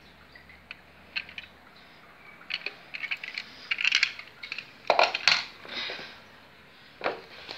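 Handling noise of a small Tatra 603 model car and the phone: light clicks and clinks with rustling, and louder clattering rustles about five seconds in and again near the end.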